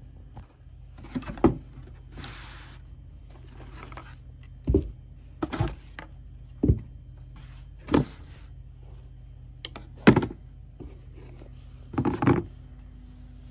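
Cardboard shoebox and sneakers being handled: a short scraping rustle about two seconds in, then a string of sharp knocks and thuds as the shoes are lifted out of the box and set down on it.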